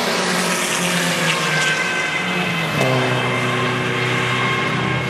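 Sports cars' engines running hard on a race-circuit straight, with the engine notes holding and stepping in pitch. About three seconds in, a deeper, steady engine note comes to the fore.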